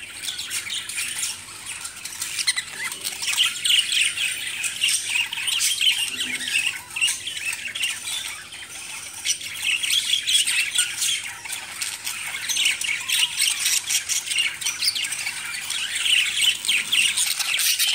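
A small flock of caged budgerigars chattering together: a continuous stream of quick, high chirps and warbles from several birds at once, with no pause.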